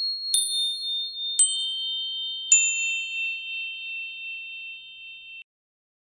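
High bell-like chime notes struck one after another, about a second apart, each lower in pitch than the last. Each note rings on under the next, and all cut off at once near the end.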